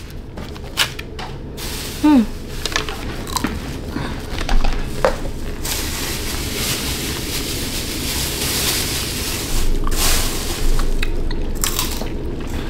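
Plastic ice-pop tray crinkling and clicking as a frozen ice pop is pulled out, then biting and chewing on the ice pop, with a short hum.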